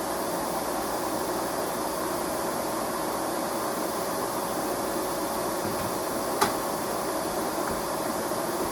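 Kenmore 400 Series canister vacuum cleaner running steadily, a hissing rush of air over a steady motor whine. A single sharp click sounds about six and a half seconds in.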